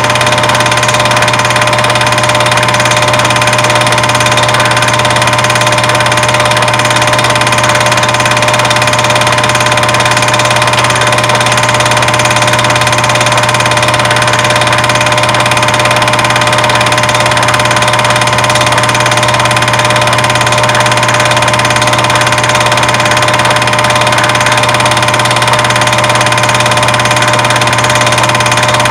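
Loud, unchanging electrical hum and hiss, several constant tones over a steady noise floor: soundtrack noise from an old analogue video recording.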